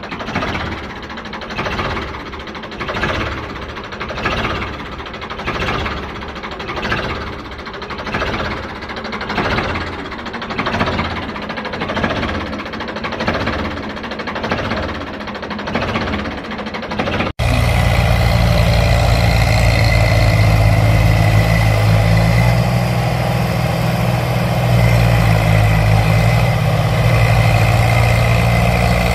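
Tractor engine sound, pulsing rhythmically at first, then cutting sharply about 17 seconds in to a louder, steady, deep engine drone.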